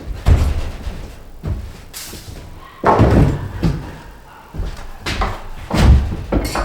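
Wooden prop boards being knocked loose from under ceiling trusses and dropping: a string of separate thumps and clatters, the loudest about three seconds in and just before six seconds.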